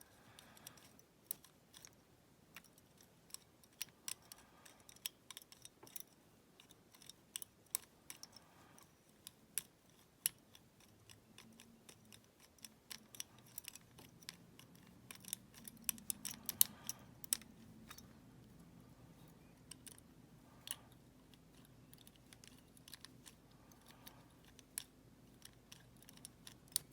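Irregular small metallic clicks and scrapes of a pick wire working the levers inside a five-lever padlock, faint and scattered, with some louder ticks around the middle.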